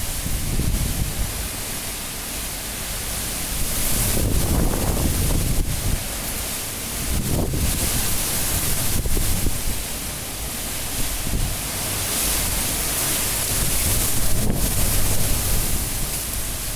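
Cyclone wind gusting hard, a steady rush that swells in surges several times and eases between them, with a few brief sharp clicks.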